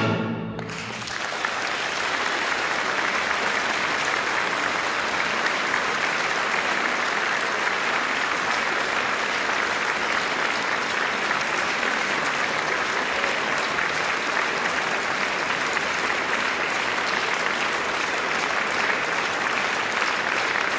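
The orchestra's final chord dies away at the very start, then a concert audience applauds, a dense, steady clapping that keeps an even level throughout.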